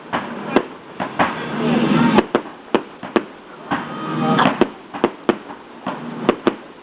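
Fireworks going off: about a dozen sharp bangs at irregular intervals, with two louder swells of noise about a second and four seconds in.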